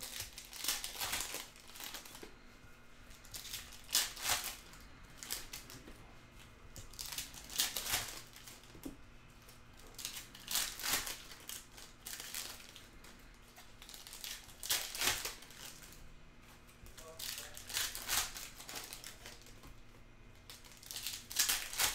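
Foil wrappers of Panini Mosaic basketball card packs being torn open and crinkled by hand, in irregular short bursts every one to three seconds.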